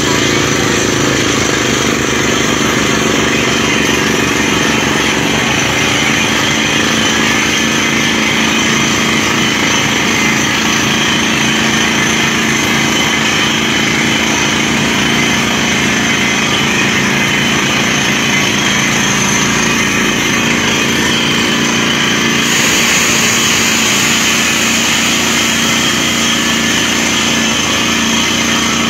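Truck-mounted down-the-hole water well drilling rig at work: its engine and air compressor run steadily while compressed air blasts rock dust and cuttings out of the borehole, with a fast, even pulsing of the hammer underneath. The hiss grows brighter about three-quarters of the way in.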